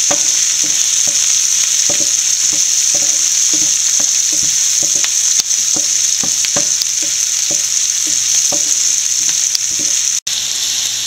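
Diced onions and green chillies sizzling in hot oil in a ceramic frying pan as they soften, stirred with a wooden spatula that scrapes the pan in short strokes about twice a second over a steady hiss.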